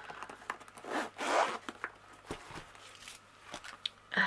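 A zipper on a padded diamond-painting drill storage case being unzipped, in long pulls about a second in, followed by light clicks and knocks as the case is opened.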